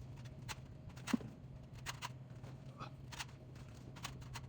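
Faint, scattered light clicks and rustles of packaged snacks being handled and set into a vending machine while restocking, with a sharper click about a second in, over a steady low hum.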